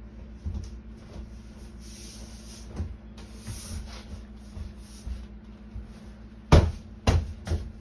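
Hand slapping a sheet of thin wall paneling as it is pressed flat against the wall: a few light knocks, then three loud thumps close together near the end.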